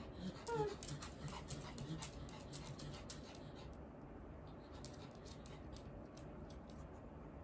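A dog gives one short whine about half a second in, followed by soft scattered clicks and rustling.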